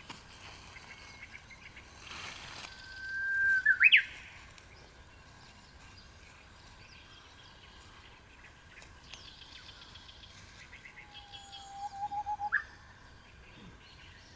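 Japanese bush warbler singing its 'hoo-hokekyo' song twice. The first song is a long whistle that swells in loudness, then breaks into a quick rising flourish. The second, near the end, is a lower rapid warbling note that ends in a sharp upward slur.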